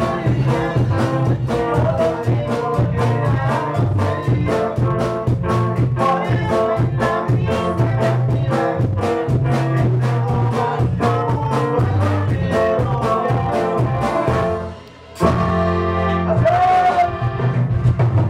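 Music with a steady, quick beat and held melodic notes. It drops out briefly about fifteen seconds in, then starts again abruptly.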